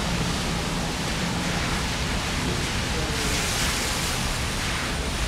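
Steady rain falling, a continuous even hiss that swells brighter for about a second a little past the middle.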